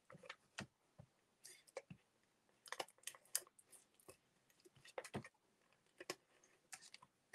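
Cardstock panels being handled and pressed down onto a card base on a glass craft mat: faint, scattered paper rustles and small clicks and taps at irregular intervals.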